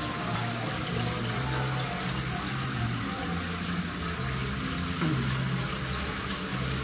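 Aquarium filter pumps and an air stone running, giving a steady rush of splashing, bubbling water.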